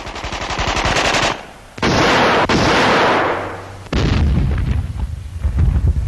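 Battle gunfire: rapid machine-gun fire for about the first second, then a loud sustained blast of noise from about two seconds in, and heavy, low-pitched firing from about four seconds in.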